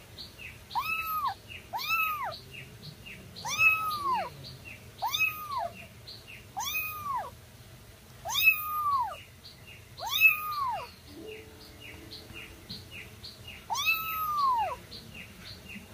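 A young kitten meowing over and over: about eight thin, high mews, each rising and falling in pitch, with a longer pause near the end. A faint, even chirping of about three short ticks a second runs underneath.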